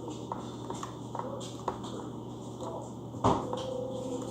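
Slime being handled, with scattered faint clicks and one sharper thump about three seconds in.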